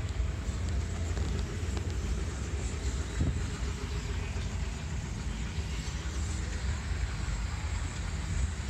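Wind buffeting a phone microphone: a steady, rough low rumble, with one brief knock about three seconds in.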